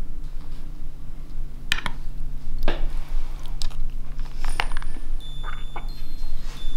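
A spoon clinking against a dish four or five times, spaced about a second apart, over a steady low hum.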